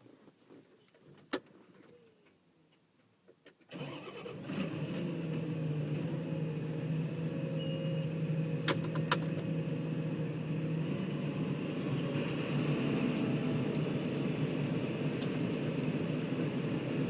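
John Deere tractor engine starting about four seconds in, after a quiet stretch with a single click, then running steadily.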